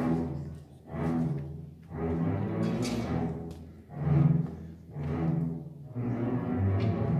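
Student string orchestra of violins, cellos and double basses playing a series of strong, swelling chords about a second apart over a deep bass line.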